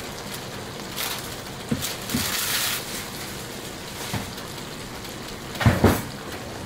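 Hamburger meat and pasta sizzling and simmering in a skillet on an electric stove, a steady crackling hiss with a few small pops. Near the end come two loud knocks, a clatter of dishes.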